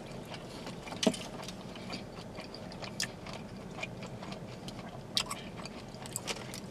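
Faint chewing and mouth noises from two people eating shrimp burritos, with a few scattered soft clicks and smacks, the sharpest about a second in.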